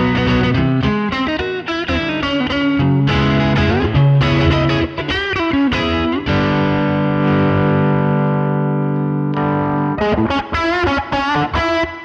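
Electric guitar played through a Demonfx King of Drive dual overdrive pedal, giving a distorted, driven tone. Picked notes and chord riffs come first, then a chord is left ringing for about three seconds and cuts off, then quick short notes follow.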